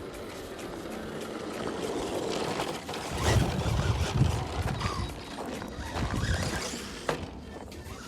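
Team Corally Mammoth SP brushed 2WD RC monster truck running on a 3S LiPo, its motor and tyres working over the ground. It gets louder from about three seconds in, with uneven low rumbling.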